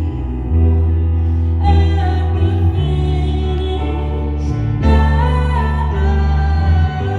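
A song performed live: singing over instrumental accompaniment, with held low notes that change every second or two.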